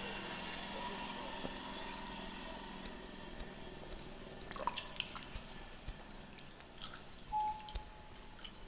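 Fingernails scratching through a beard close to the microphone: a steady rustling hiss that breaks into scattered small crackles about halfway through. A brief clear tone sounds near the end.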